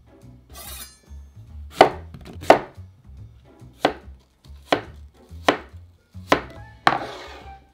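Chef's knife cutting an apple on an end-grain wooden cutting board: about seven sharp, irregularly spaced knife strikes through the fruit onto the wood, followed near the end by a brief scrape.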